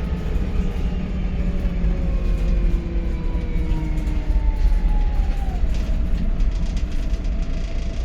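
VDL SB200 bus engine running with a quiet turbo whistle over a steady low rumble. The whistle tones slowly fall in pitch, one dropping more sharply about five and a half seconds in, as the engine eases off.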